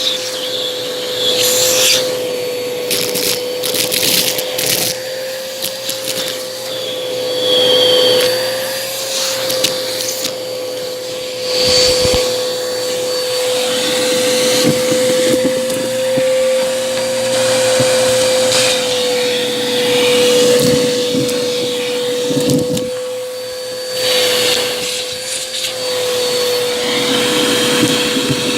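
Bissell vacuum cleaner running with a steady motor whine, its brushroll crunching and crackling irregularly as it picks up debris.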